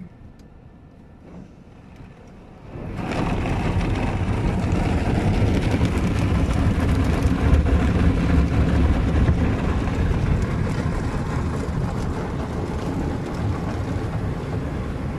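Automatic car wash heard from inside the car: after a quiet start, a loud steady rush of water spray and cloth brushes on the car's body and glass sets in suddenly about three seconds in and keeps going.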